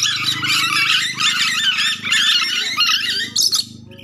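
Ornate lorikeets (nuri dora) chattering and screeching in a rapid stream of shrill calls that stops about three and a half seconds in. A steady low hum runs underneath.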